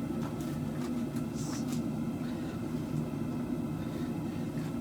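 Steady low mechanical rumble with a faint hum, and a few faint clicks over it.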